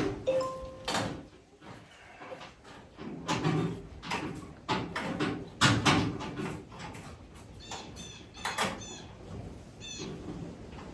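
Irregular clicks and knocks of tools and a steel brake line being handled and worked into place, with a few short high chirps about eight seconds in and near the end.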